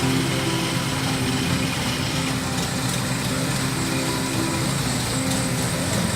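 Kubota DC70 combine harvester's diesel engine and cutting machinery running steadily under working load.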